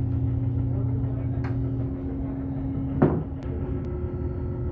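Hydraulic hose crimping machine running with a steady hum; a lower drone drops away about two seconds in, and a single sharp clack, the loudest sound, comes about three seconds in as the crimper is opened.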